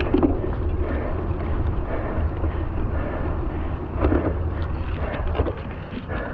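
Wind buffeting the microphone of a camera on a moving cyclocross bike, over the noise of its knobby tyres rolling through mud, with a few knocks as the bike jolts over rough ground.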